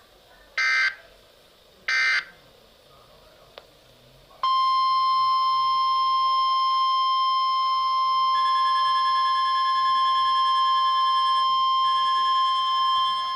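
Emergency alert broadcast signalling: two short screeching data bursts about a second apart (the end of the digital alert header), then, after a brief click, a loud steady single-pitch alert tone just above 1 kHz starts about four and a half seconds in and holds unbroken. This is the attention tone that precedes a severe thunderstorm warning message.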